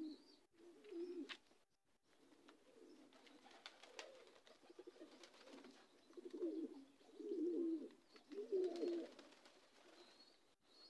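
Faint cooing of domestic pigeons: a few low, rolling coos, the clearest coming close together about six to nine seconds in, with faint high chirps now and then.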